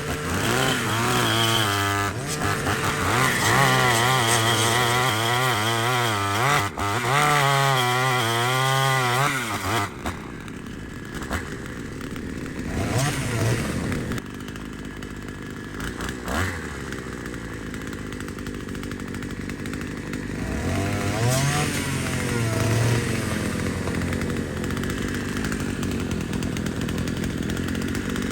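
Two-stroke engine of a Vevor 1E44F gas brush cutter running at high revs with a metal blade, its pitch wavering up and down under load as it cuts brush. About ten seconds in it drops back to a lower, steadier speed, then revs up again briefly a little past twenty seconds.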